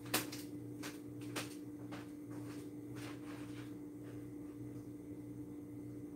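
Footsteps walking away, about two a second, growing fainter and stopping about three and a half seconds in, over a steady low electrical hum.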